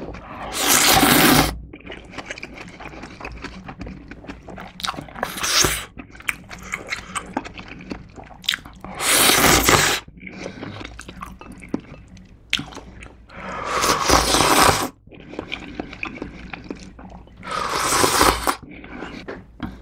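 A person slurping ramen noodles and broth from a spicy gochujang stew, close to the microphone. There are five loud slurps a few seconds apart, with soft wet chewing between them.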